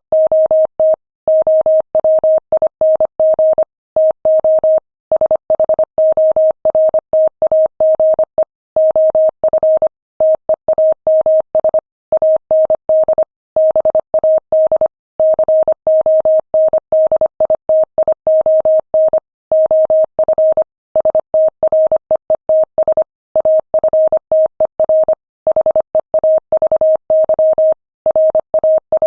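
Morse code sent at 25 words per minute: a single steady mid-pitched beep keyed on and off in rapid dots and dashes, with brief pauses between words.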